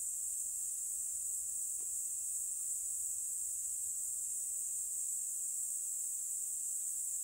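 A steady, unbroken high-pitched hiss with a faint low rumble beneath it, and no distinct events.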